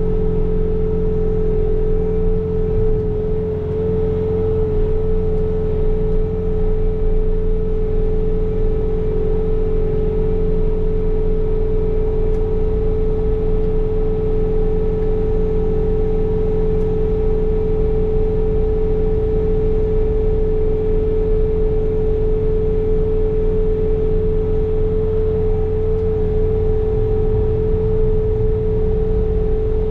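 Bobcat T66 compact track loader running steadily under load with its snow blower attachment working, a strong steady whine over the diesel engine.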